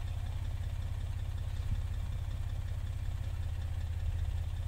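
Engine idling with a steady low hum.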